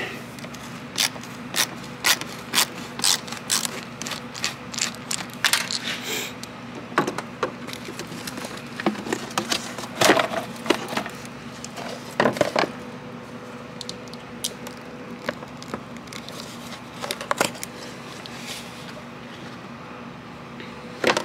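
Irregular clicks, taps and scrapes of a hand tool on bolts and of hard plastic engine-bay parts being handled, with a few louder knocks midway, over a faint steady hum.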